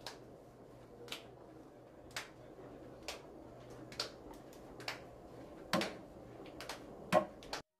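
Light, sharp taps and clicks of a potter handling unfired clay bowls, about one a second, over a faint steady room hum. The last two are the loudest, and the sound cuts off suddenly near the end.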